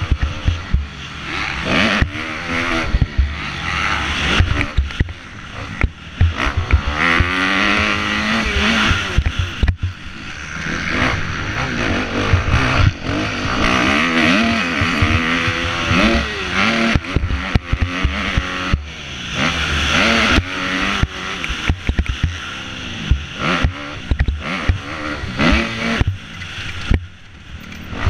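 Kawasaki KX250F four-stroke motocross bike engine revving hard and dropping back again and again as the rider shifts and brakes for corners, heard from a helmet-mounted camera with a steady rush over it and knocks from the bike over ruts and jumps.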